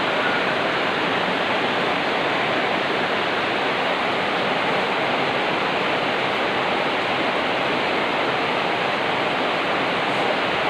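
Heavy rain falling, a steady even hiss that holds at the same level throughout.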